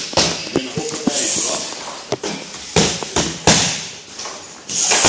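Boxing gloves striking focus mitts: several sharp smacks at uneven intervals, with short hissing sounds between them.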